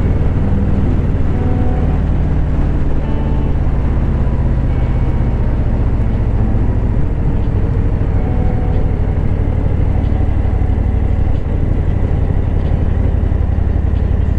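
Harley-Davidson Low Rider S Milwaukee-Eight V-twin running on the move through Screamin' Eagle slip-on mufflers, a steady loud rumble; the engine note drops a little about eleven seconds in.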